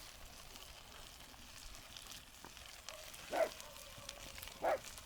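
Food sizzling in butter in a pan over a campfire, a faint steady hiss. Twice in the second half a short, louder pitched sound cuts in.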